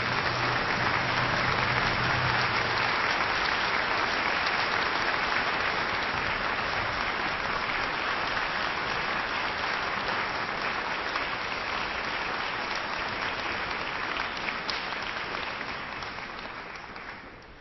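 Audience applauding: a dense, steady clatter of many hands clapping that thins out and fades near the end. The last low note of music dies away under it in the first few seconds.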